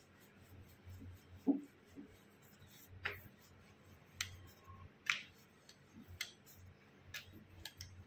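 Rolling pin rolling out paratha dough on a rolling board: quiet rubbing with light clicks about once a second as the pin knocks against the board.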